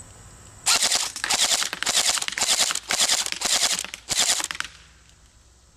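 GameFace GFM4 airsoft electric rifle firing on full auto in a string of short rapid bursts, starting under a second in and stopping about four seconds later.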